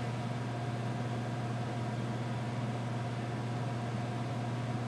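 Steady machine hum: a constant low tone with a few fainter tones above it and a light hiss, unchanging throughout.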